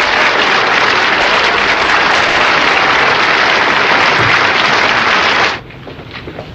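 Large audience applauding, cut off abruptly about five and a half seconds in, leaving a much quieter background with a faint low hum.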